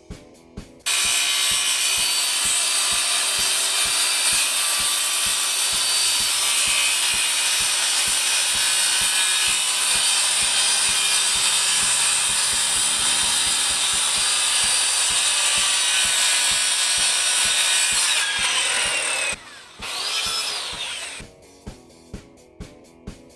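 Corded Skilsaw circular saw cutting plywood, running steadily for about eighteen seconds before its whine falls away as the blade spins down. The saw then runs again briefly, its pitch rising and falling.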